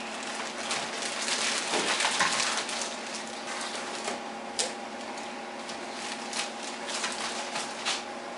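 Thin plastic bags crinkling and rustling as the foam wing sections packed in them are handled and laid on a table, busiest in the first few seconds, with a couple of sharp taps later on. A faint steady hum runs underneath.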